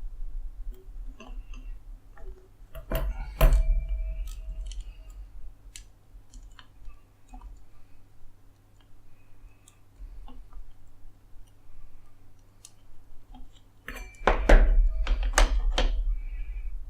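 Zip tie being threaded through the acrylic bearing mount of a 3D printer kit: light plastic clicks and taps, with louder clattering knocks about three seconds in and again for two seconds near the end. A steady low hum runs underneath.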